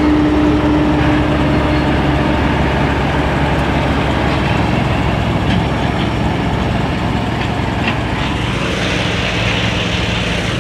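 Heavy diesel engine of road-repair machinery running steadily, with a whine in the first two seconds that fades out.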